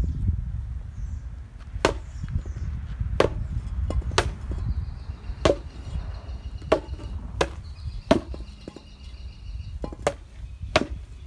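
Rattan sword blows striking a pell made of hanging rubber tires: about nine sharp whacks at irregular spacing. A steady low rumble runs underneath.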